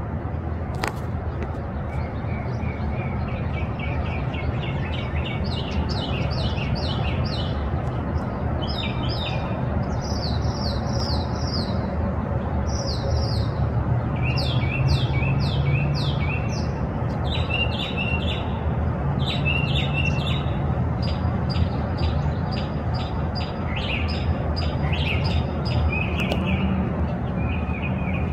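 Songbirds chirping in quick runs of short high notes, several different patterns in turn, over a steady low rumble.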